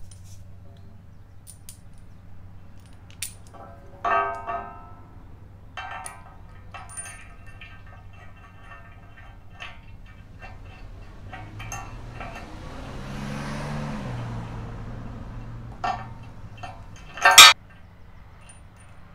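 Powder-coated steel bumper parts and bolts clinking and clanking as they are handled and fitted together by hand, some knocks ringing briefly, with one loud clank near the end.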